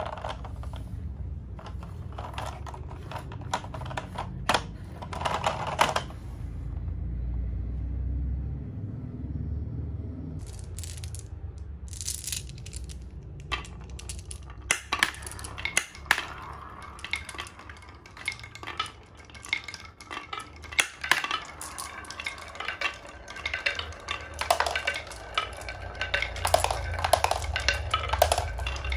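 Marbles rolling down grooved wooden marble-run tracks, clicking and clacking against the wood and each other, with a brief lull about a third of the way in and a dense, rattling run of clicks in the second half as a handful of marbles goes down at once.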